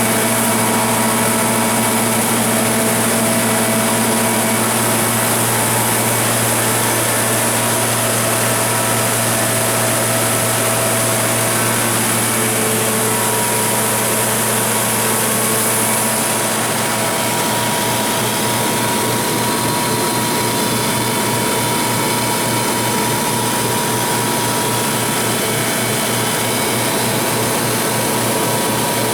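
Kohler 100 kW natural gas standby generator set running steadily, its Ford LSG-875 engine held at constant governed speed, with a mix of fixed tones and mechanical hum. The tone shifts slightly about two-thirds of the way through.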